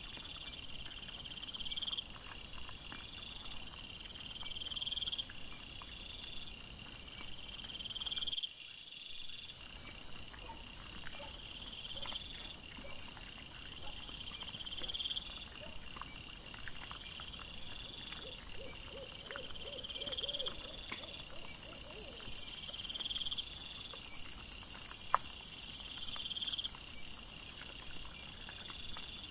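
Night insects chirping in a steady repeating pattern, a rising chirp about every two seconds over a faster pulsing trill, with faint scattered clicks and rustles and one sharper click near the end.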